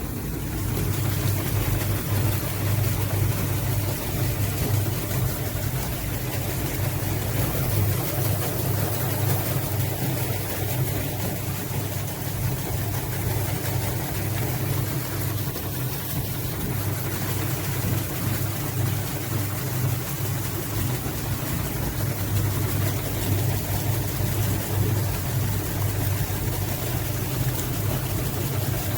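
Apple-mill machinery running steadily: a loud, constant low mechanical hum with a steady drone of noise and no pauses.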